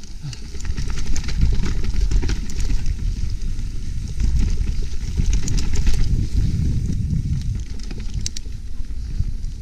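Trek Slash full-suspension mountain bike descending a rough trail, heard from a mounted action camera: a steady low rumble of tyres and wind on the microphone, with constant rattling and clicking from the bike over the bumps.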